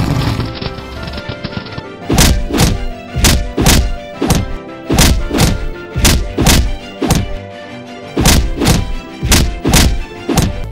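Soundtrack music under a run of heavy, regular thuds, about two a second, starting about two seconds in. A loud noisy sound trails off in the first second or so.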